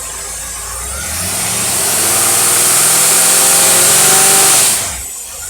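Marine engine on a test dyno, fed by a Holley four-barrel marine carburetor with its secondary barrels opened by hand, revving up steadily over about three seconds and holding high revs. The throttle is then snapped shut and the revs fall abruptly about five seconds in. It pulls without stumbling, a sign that the carburetor is now working well.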